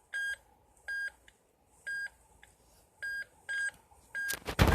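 Metal detector giving about six short, same-pitched beeps at uneven intervals as it is swept over a dug hole, signalling a target still in the ground. A loud rustling knock comes near the end.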